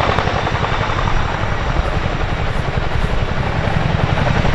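RAF Chinook tandem-rotor helicopter hovering with a two-ton gun slung underneath: a steady, rapid beat of its two rotors under a broad rush of rotor and engine noise.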